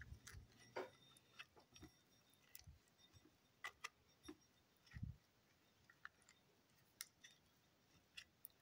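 Faint, irregular clicks and soft knocks of hard lobster-tail shells being handled and rubbed with oil in a glass bowl.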